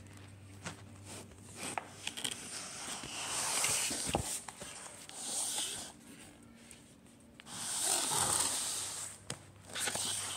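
Close rustling and handling noise as dolls are moved about on a wooden floor and the phone is handled, with scattered small clicks and two longer swells of rushing noise, about three seconds in and again near eight seconds.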